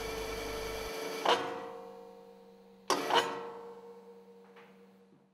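Turning gear of a large two-stroke marine diesel engine rotating the toothed flywheel: a steady mechanical hum cuts out about a second in. Then come a metallic clank and two more close together about three seconds in, each ringing out and fading.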